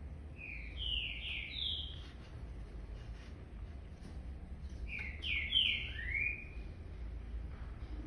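A bird chirping twice, each time a quick run of three or four short, slurred chirps, over a low steady hum.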